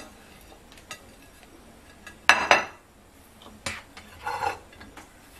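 A few short clattering and scraping sounds of ceramic dishes: a plate knocking and scraping against a mixing bowl, the loudest a little over two seconds in, with a lighter knock and scrape near the end.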